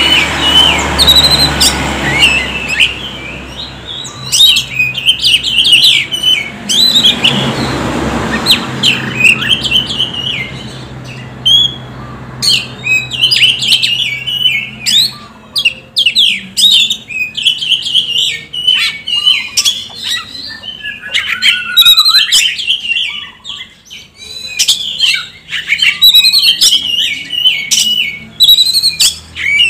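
Oriental magpie-robin (kacer) singing: a long, fast run of varied whistles, chirps and trills mixed with sharp clicks, with brief pauses about halfway and again about four-fifths of the way through.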